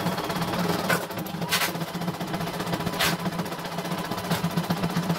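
CNY E900 computerized embroidery machine stitching: a fast, steady needle rattle, with a few sharper clicks about one, one and a half, three and four and a half seconds in.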